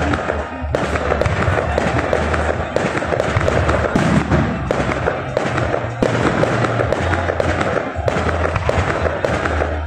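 Fireworks display: a dense, continuous run of aerial shell bursts and crackling stars, many sharp reports a second without a break.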